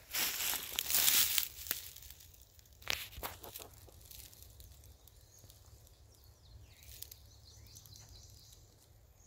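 Rustling and crunching in dry leaves or brush for about the first second and a half, a few sharp snaps around three seconds in, then quieter.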